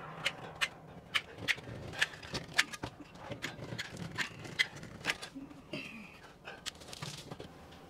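Scattered light knocks and clicks of hand tools working on the wooden window frame, irregular, about two a second.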